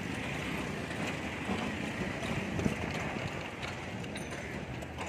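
Busy street traffic, with auto-rickshaws and cycle-rickshaws passing close and steady, irregular clattering and knocking.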